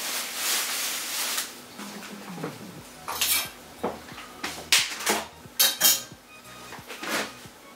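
Plastic film rustling as it is pulled off a tray of chicken drumsticks, then a kitchen knife slitting the film and knocking against the tray in several sharp clicks.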